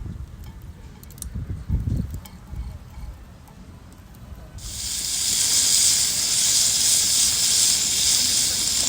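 Low rumbling and a few soft knocks, then a loud steady hiss starts suddenly about halfway through and keeps going.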